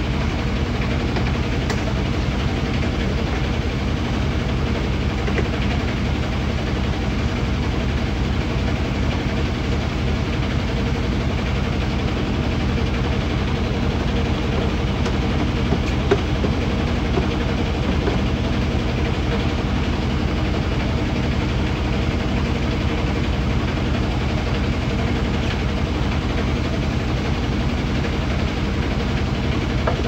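Steady machine hum, like a motor running continuously, holding several fixed low tones, with a single light knock about halfway through.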